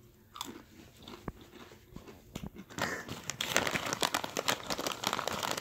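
A few faint scattered clicks, then from about three seconds in a dense, crisp crackling and crunching of potato chips and their foil-lined bag.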